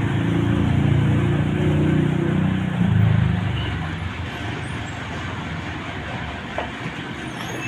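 A bus passing close by with a deep engine drone, loudest for the first three seconds or so, then fading into steady traffic noise.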